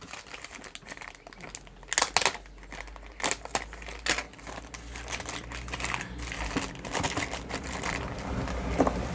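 Clear plastic bag crinkling and rustling as hands work it open and pull out a set of rubber drum coupling bushes, with sharp crackles about two, three and four seconds in and denser rustling in the second half.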